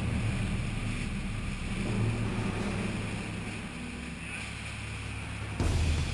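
Boat engine droning steadily as the hull runs through choppy water, with rushing spray and wind on the microphone; the sound gets suddenly louder near the end.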